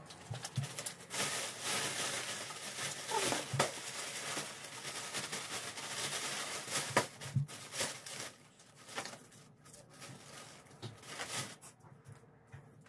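A plastic bag rustling as things are handled, with a few scattered knocks, mostly in the first two thirds and quieter near the end.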